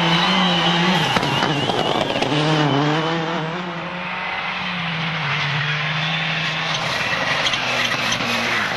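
Rally car engine running hard at high revs. The engine note breaks off about a second in, then picks up and holds steady before changing again near the end.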